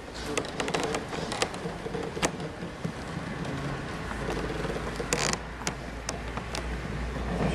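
Scattered knocks, taps and creaks of the wooden-covered stairs as kneeling pilgrims shuffle up them, with a brief scrape about five seconds in, over a steady low rumble.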